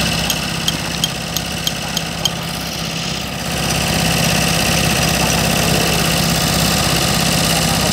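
Large diesel engine of a Hitachi crawler crane at a pile-driving rig idling steadily with a low hum. During the first couple of seconds there is a regular run of sharp clicks, about three a second.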